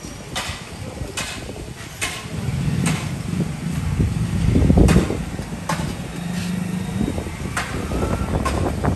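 Petrol dispenser filling a car's tank, with a low running hum and about eight sharp clicks at irregular intervals.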